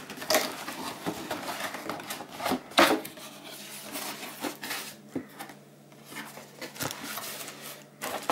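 Hands opening a cardboard box and handling the plastic wrapping inside: irregular scrapes, taps and crinkles of cardboard and plastic, with a few sharper strokes in the first three seconds.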